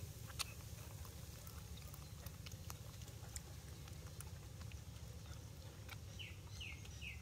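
Small clicks and smacks of a young macaque being fed from a metal spoon, over a steady low rumble. Four quick, falling high chirps come near the end.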